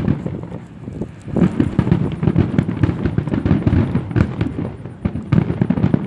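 Fireworks grand finale: a rapid barrage of overlapping bangs and crackle with a short lull about a second in.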